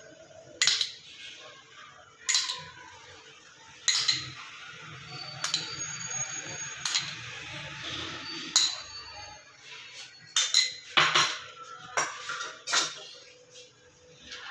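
Metal spoon tapping against a metal cooking pot while biryani is layered: sharp clinks about every second and a half, some ringing briefly, then a quicker run of taps near the end.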